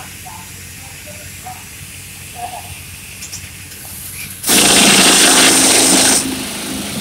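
Pneumatic rock drill running on compressed air: a low steady hum, then a sudden loud start with a hiss of air about four and a half seconds in, easing after under two seconds to a quieter steady running.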